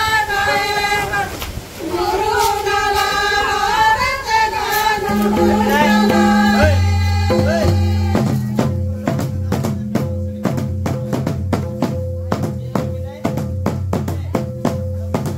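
A group of women singing a Santali Karma song together. About halfway through, a steady low drone and an even drum beat of about three strokes a second come in and take over, with the voices falling back.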